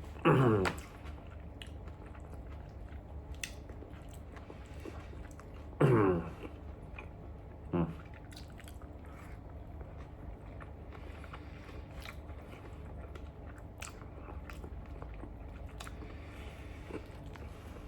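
A person chewing and biting a mouthful of beef chow fun (stir-fried rice noodles with beef), with many small wet clicks and smacks. Three short, loud sounds slide down in pitch: near the start, about six seconds in, and about eight seconds in.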